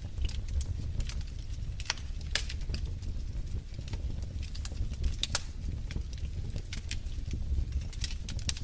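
Wood fire in a fireplace crackling: irregular sharp pops and snaps, a few of them louder, over a steady low rumble of the flames.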